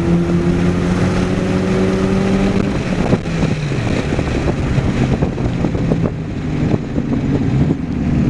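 Car engine held at high revs with its pitch slowly creeping up, then dropping away about three seconds in to a lower, unsteady running note, with wind noise over the microphone.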